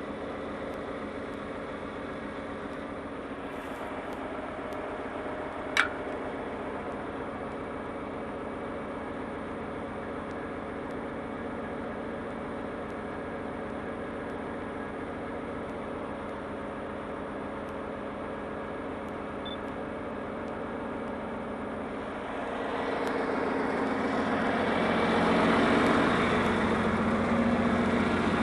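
John Deere tractor engine running steadily while pulling a disc harrow, with one sharp click about six seconds in. The engine grows louder over the last several seconds.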